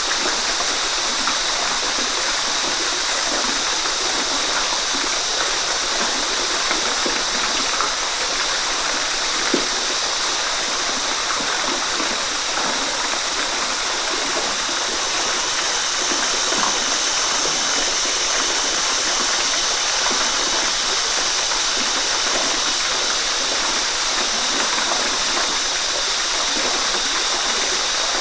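Waterfall: water falling and splashing in a steady, even rush, with small splashes scattered throughout.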